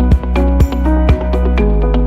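Electronic background music: a deep bass line and sustained synth notes over a steady beat of about two hits a second, the beat dropping out about one and a half seconds in as the bass shifts.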